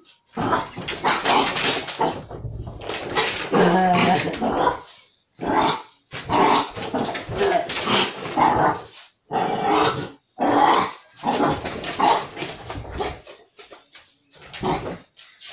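Dog vocalizing in play: a string of bursts about a second long, with short gaps between.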